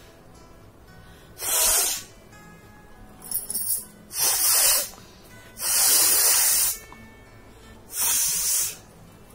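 A person blowing their nose hard: four forceful hissing blasts of air through the nose, each lasting under a second, with a shorter sputtering one between the first two.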